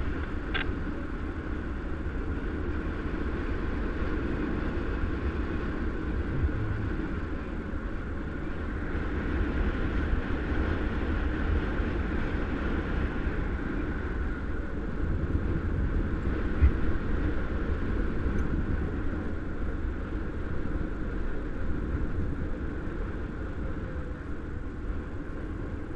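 Airflow rushing over the camera microphone of a paraglider pilot in flight: a steady low rumble with a breathy hiss above it, swelling slightly from time to time.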